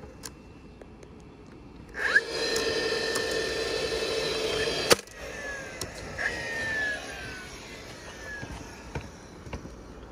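DeWalt XR cordless nailer: its motor spins up and whirs steadily for about three seconds, then fires with one sharp crack as it drives a nail into the wooden frame, and the motor winds down in falling whines. A few light clicks follow near the end.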